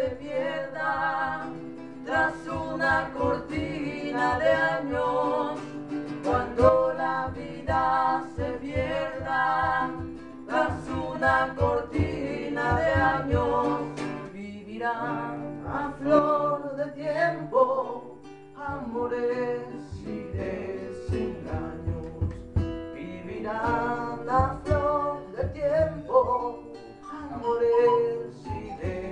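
Acoustic guitar strummed and picked while a man sings an Andean folk song.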